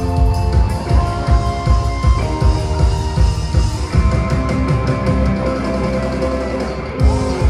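Live rock band playing: drums, electric guitars, bass and keyboards, with held chords over steady drum hits. The arrangement shifts about four seconds in, and a note bends downward near the end.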